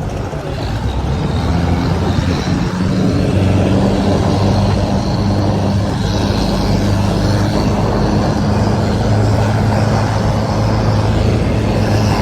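A motor vehicle's engine running steadily with a low hum, getting a little louder in the first few seconds and then holding even.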